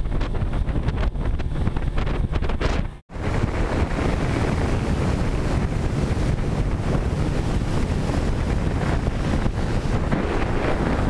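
A moving boat heard at speed: wind buffeting the microphone and water rushing along the hull. The sound cuts out for a moment about three seconds in, and after that the rush of water past the hull is louder and fuller.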